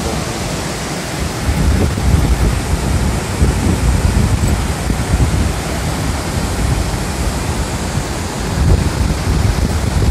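Wind buffeting the microphone, a low rumble that rises and falls in gusts, over a steady rushing hiss.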